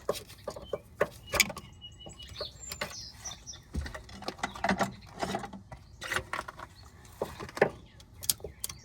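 Screwdriver prying and twisting at a metal pressure clamp on a steering rack boot: irregular metallic clicks, taps and scrapes, some sharp knocks among them.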